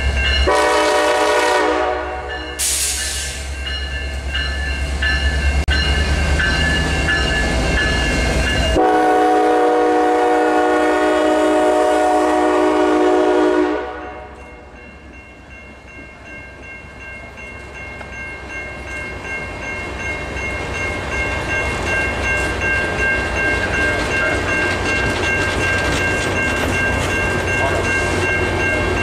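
Passenger train's locomotive horn blowing a short blast, then a long one of about five seconds, over the rumble of the locomotive passing close by. The coaches then roll past, and the rumble builds again toward the end as the trailing locomotive nears.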